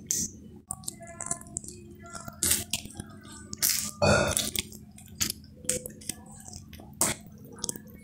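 Close-up wet mouth sounds of eating a chicken wing by hand: sucking and lip-smacking on the meat and bone, a string of short sharp smacks, with one louder, lower mouth sound about four seconds in.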